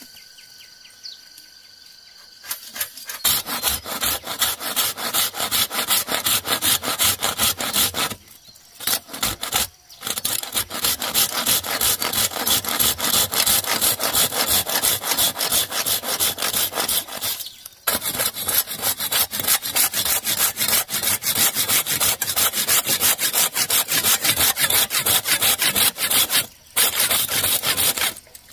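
Handsaw cutting through a green bamboo culm near its base: rapid back-and-forth strokes that start about three seconds in, with a short pause about a third of the way through and two brief breaks later.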